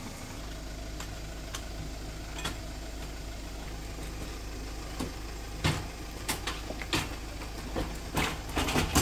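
A vehicle engine idling with a steady low hum. Over the last few seconds comes a run of sharp knocks and clatters.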